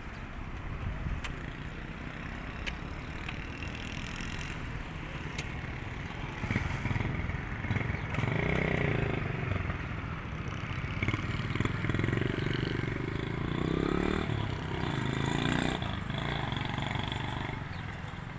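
Floodwater rushing across a road, a steady noisy rumble with wind on the microphone. From about six seconds in, a louder, uneven noise rises over it for roughly ten seconds, then fades back.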